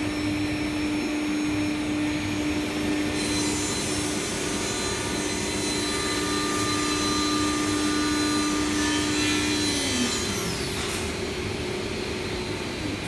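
CNC wood machining center (router) running with its dust extraction, a steady loud whirring noise with a constant whine. About ten seconds in, the whine drops sharply in pitch as the spindle slows.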